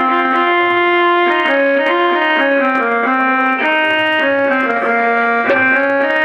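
Music: a keyboard instrument playing a melody of held notes, stepping from one pitch to the next every half second to a second or so, over a faint low accompaniment.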